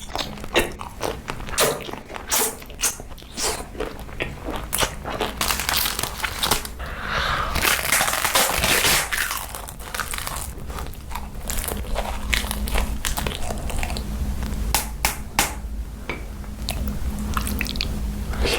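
A person biting and chewing crunchy food, with many irregular sharp crunches throughout.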